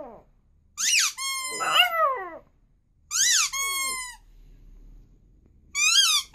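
Puppy howling: a few drawn-out, high-pitched howls with short pauses between. Each howl rises and then holds or slides down in pitch, and another starts near the end.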